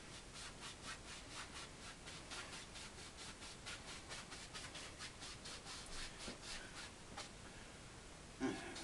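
Paintbrush scrubbing oil paint onto canvas in crisscross strokes: a steady rhythmic scratching, about five strokes a second. There is a brief louder sound near the end.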